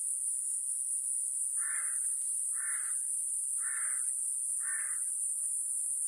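Iwasaki grass cicadas singing a steady, very high-pitched buzz, while a large-billed crow caws four times, about a second apart, starting about a second and a half in.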